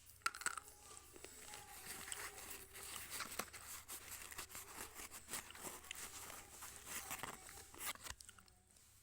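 Slate pencil being bitten and chewed close to the microphone: dense, gritty crunching and crackling that eases off near the end.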